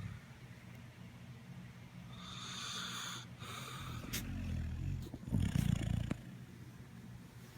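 Snoring: a low, steady rumble with a breathy hiss on one breath about two to three seconds in, and a louder, rougher snort a little past halfway.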